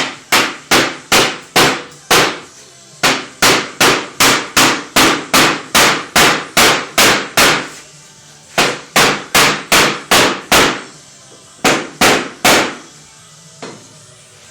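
Hammer striking repeatedly at about two to three blows a second, in four runs with short pauses between them and one last light tap near the end.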